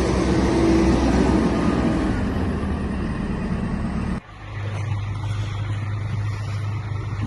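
Motor vehicle noise with a steady low engine hum, cut off abruptly about four seconds in and followed by a quieter, steadier low hum.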